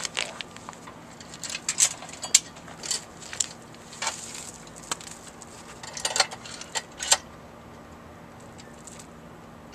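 Steel chain links and a hand load binder clinking and rattling as the binder is hooked onto the chain, in irregular clusters of sharp metallic clinks.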